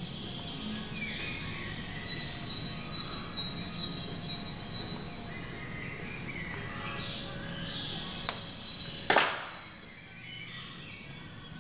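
Faint background music of short high notes, with quiet handling of wire and wire cutters; about nine seconds in, one sharp snip from the wire cutters is the loudest sound.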